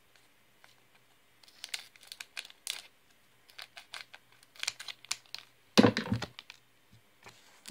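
Scissors snipping across the top of a foil trading-card booster pack, the foil wrapper crinkling in short crackly strokes, then a louder burst of crinkling and handling about six seconds in.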